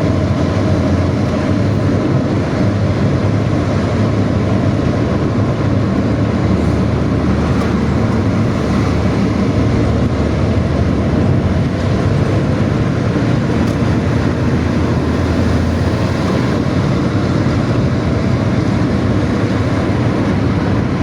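Intercity bus at highway speed, its engine and growling aftermarket 'ngorok' exhaust running steadily under heavy load, mixed with road and wind noise.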